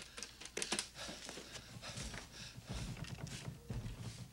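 Desk telephone being picked up and dialled: a run of small plastic clicks from the handset and buttons, with a few soft low thumps of handling later on.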